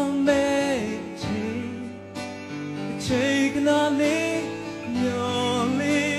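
Male vocalist singing a Burmese pop song with a live band behind him, including electric guitar. He holds long notes with vibrato, and there is a short break in the vocal about two seconds in.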